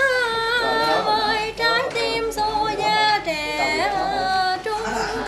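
A woman singing an advertising jingle read off a lyric sheet, holding long notes that slide between pitches, with no steady beat.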